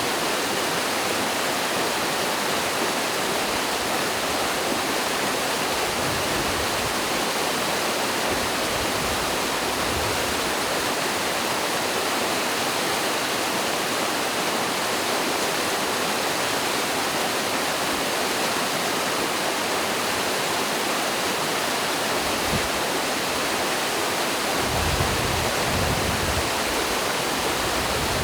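Mountain stream and small waterfall, a steady dense rush of falling and flowing water, with a few brief low rumbles near the end.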